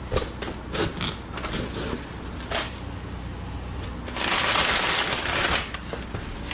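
Cardboard box and packing being opened and handled: scattered crinkles and light knocks, then a louder rustle lasting about a second and a half, starting about four seconds in.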